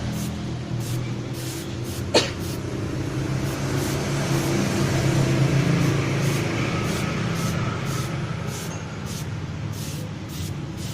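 A small motorcycle engine running steadily, with one sharp click about two seconds in.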